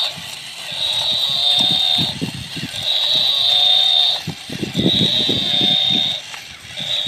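Battery-operated walking toy cow: its built-in speaker repeats a high electronic sound effect, four times about two seconds apart, over the clicking and knocking of its geared walking mechanism.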